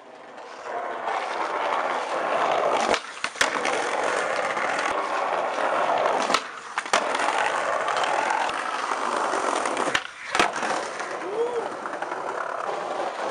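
Skateboard wheels rolling with a steady rumble over paving stones, broken about three seconds in, again around six and a half seconds and near ten seconds by a brief silence in the air and sharp clacks of the board popping and landing.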